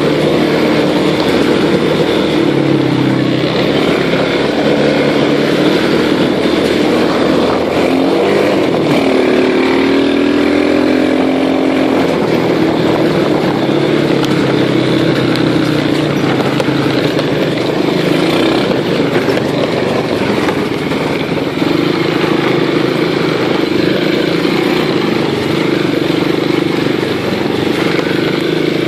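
Small motor vehicle engine running loud and steady, its pitch shifting up and down between about eight and twelve seconds in.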